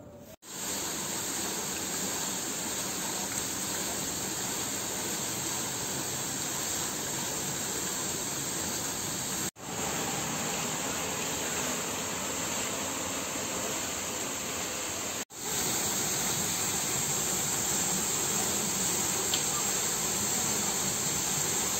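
Fountain water pouring down a stone column and jets splashing into the basin: a steady rushing hiss that cuts out briefly three times and is a little louder after the last break.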